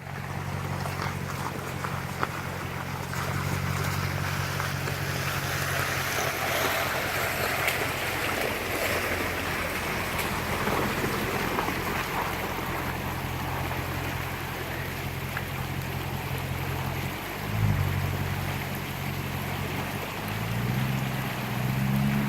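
Land Rover LR3 engine running at low revs as the truck wades through a river, with water rushing and splashing around it, loudest from about six to ten seconds in. The engine revs briefly about seventeen seconds in and climbs again near the end.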